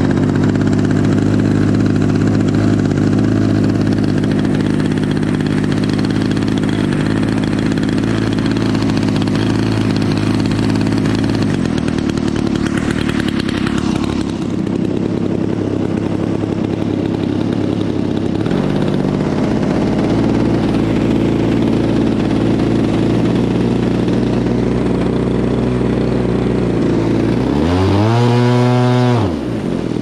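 DLE 55RA single-cylinder two-stroke gas engine turning a 22x8 propeller on a large RC model plane, just hand-started and idling steadily. Near the end it is revved up and back down, then revved up again.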